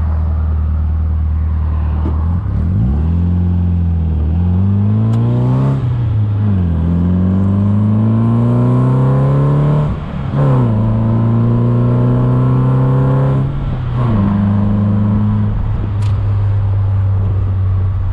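MG Midget's Rover K-series four-cylinder engine accelerating hard through the gears. The pitch climbs in each gear and drops back at gear changes about four, six and ten seconds in, then holds nearly steady at a cruise near the end.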